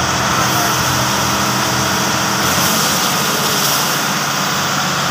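A fire tender's heavy diesel engine running steadily to drive its water pump, under a loud, even rushing noise from the water jet and the burning chemical truck.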